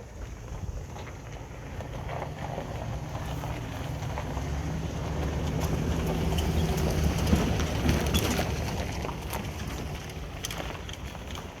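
A vehicle engine rumbling past, growing louder to a peak about two thirds of the way through and then fading away, with scattered light clicks over it.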